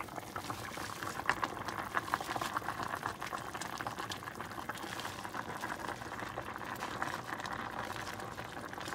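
Sinigang broth boiling in a stainless steel pot: a steady bubbling made of many small pops and crackles.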